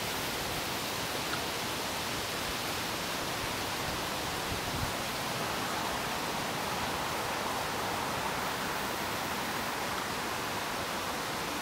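Steady outdoor noise wash with no distinct events, and one faint low thump a little under five seconds in.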